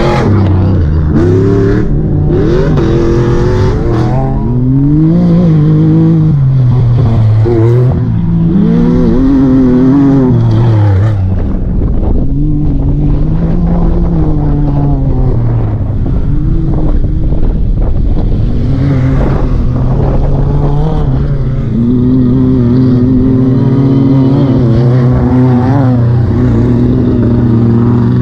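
Off-road race vehicles' engines revving hard as they pass and pull away down a dirt track, the pitch climbing and dropping again and again through gear changes. A second vehicle comes through about halfway.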